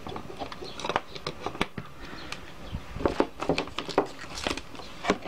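Handling noises: irregular small clicks and rustles of wires, test leads and a plastic computer fan being moved about on a workbench, busiest a few seconds in.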